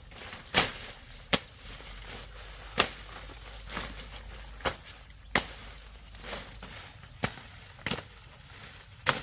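Dry ears of corn being snapped off their stalks by hand during harvest: about eight sharp cracks at uneven intervals, roughly one a second.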